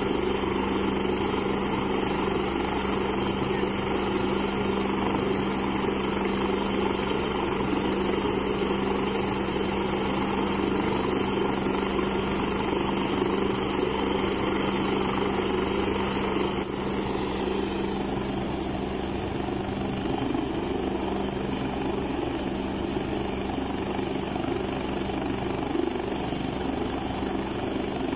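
Helicopter running on a helipad, its turbines and rotor making a steady hum under a broad rushing noise. The sound shifts slightly and drops a little in level about seventeen seconds in.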